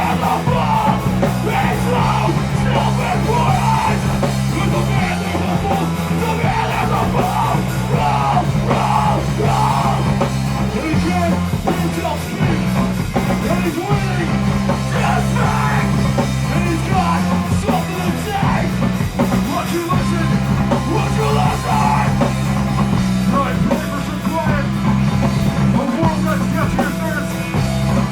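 Live rock band playing loud and without a break, the low bass line changing note every couple of seconds under drums and amplified instruments.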